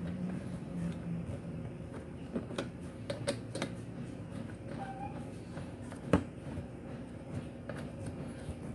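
Small scattered metallic clicks and taps of a bolt and washer being turned by hand, securing a rubber floor mat to a scooter's plastic floorboard, over steady background noise. A sharper single knock comes about six seconds in, and a brief squeak about five seconds in.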